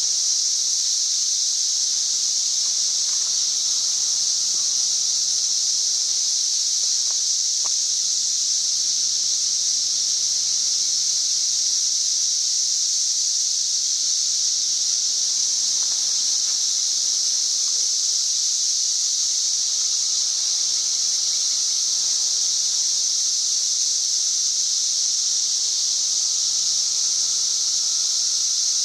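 A dense chorus of many cicadas singing together: one continuous, high-pitched, really loud drone that holds steady without a break.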